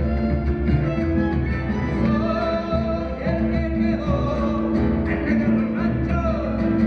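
Live Latin American folk band playing, with acoustic guitars, violin and keyboard and a drum keeping the beat, and a voice singing over them at times.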